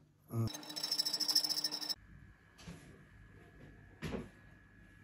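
Restored motorcycle electric disc horn sounded once: a buzzy, rasping tone for about a second and a half that cuts off abruptly.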